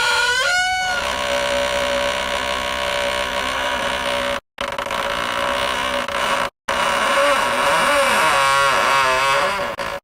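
Door hinges creaking as a heavy door swings open: long, drawn-out creaks that hold a steady pitch for a while and then waver up and down. The sound cuts off sharply twice, about halfway through and a couple of seconds later, as one creak gives way to the next.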